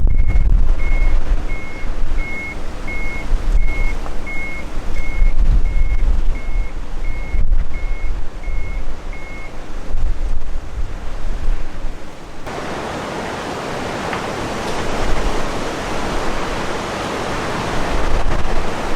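Wind rumbling on the microphone under an electronic beeper that sounds a short high beep about every 0.7 s; the beeping stops after about nine seconds. About twelve seconds in, the sound switches abruptly to a steady rush of surf and wind.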